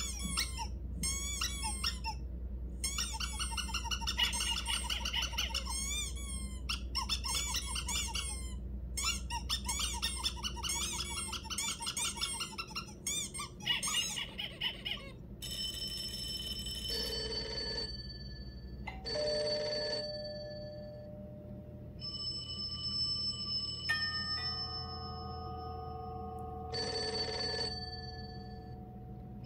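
Squeaky-toy sound effects: rapid runs of squeaks for about fifteen seconds. Then a telephone ringing: ringtone beeps and three short bursts of a ringing bell.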